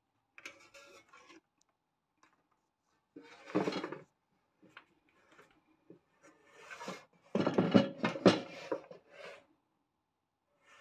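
Air fryer basket being handled and slid back into the air fryer: short knocks and scraping rubs, with the longest and loudest clatter about seven seconds in.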